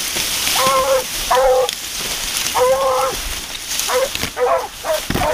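Wild boar herd grunting at close range: a string of short pitched calls, three longer ones in the first three seconds, then quicker, shorter ones, over a steady hiss.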